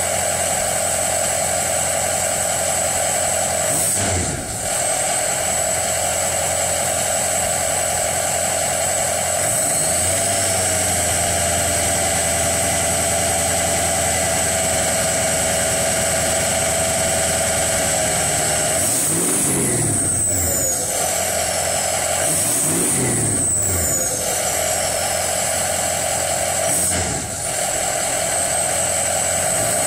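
Ford 6.0 Power Stroke turbo-diesel V8 running with a steady high-pitched turbo whistle. About two-thirds of the way through it is revved up and back down twice, the whistle sliding down in pitch as the revs fall.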